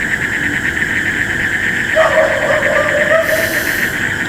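A dog howls once, a wavering drawn-out call lasting under two seconds that starts about halfway in. Under it runs the steady pulsing chirr of night insects.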